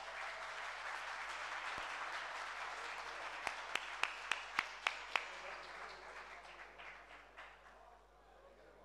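Audience applauding, fading away over the last few seconds. About halfway through, a run of about seven sharp, louder claps close by stands out, roughly three a second.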